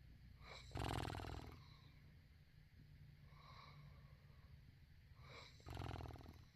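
A person snoring: two snores about five seconds apart, each lasting just under a second, with quieter breaths between them.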